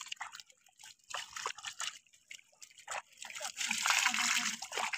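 Small live fish flapping and wriggling in a wet mesh net, giving many short scattered splashes and wet patters, with a thicker run of splashing and sloshing about three and a half seconds in.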